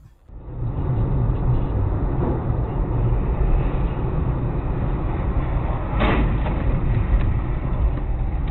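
Steady road and engine rumble of a car driving on a highway, picked up by the dashcam inside the car, with a short sharp knock about six seconds in.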